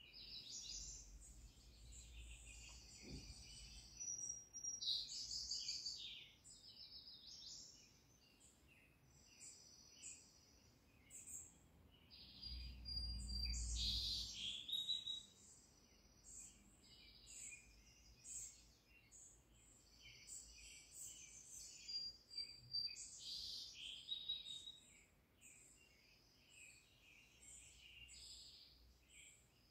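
Forest birds chirping and calling in quick, overlapping high-pitched phrases and short whistles, the ambient soundtrack of a cat TV wildlife video played through a TV soundbar. A faint low rumble rises for a couple of seconds about halfway through.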